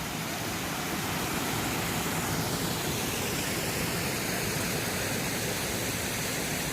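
Small waterfalls: water rushing over rocks in a steady, even hiss.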